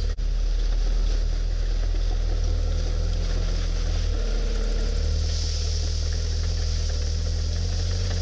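Crawler bulldozer's diesel engine running as the dozer pushes a pile of ballast stones: a steady low drone whose note changes about five seconds in.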